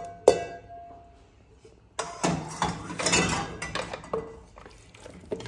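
A sharp metallic knock with a short ring, then about two seconds of scraping and rustling starting near the middle. This is cookware: a skillet being tipped and scraped out with a wooden spatula into an aluminium pressure cooker pot of meat and vegetables.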